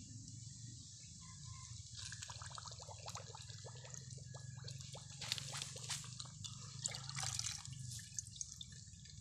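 Coconut milk poured from a metal pitcher into bamboo tubes packed with rice, trickling and splashing in uneven spurts. The pouring starts about two seconds in and tapers off near the end.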